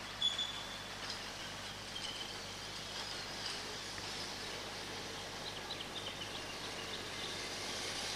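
Steady outdoor background hiss with faint, short bird chirps scattered through it.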